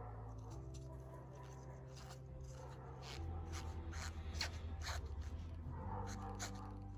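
Crackling and rustling of damp sphagnum moss as fingers press it into a thin plastic cup. A string of short crunches comes in the second half, over quiet background music with low held notes.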